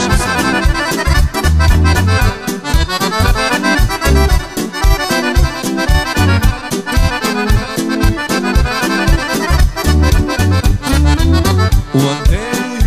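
Live band playing an accordion-led folk tune: fast accordion runs over a steady drum beat and bass.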